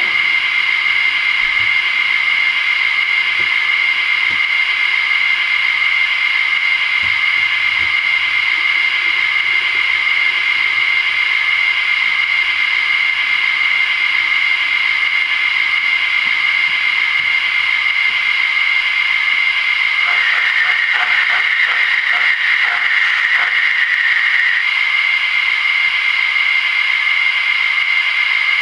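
Simulated steam sound from a sound-fitted model steam locomotive standing still: a steady hiss that grows stronger for about four seconds roughly two-thirds of the way through.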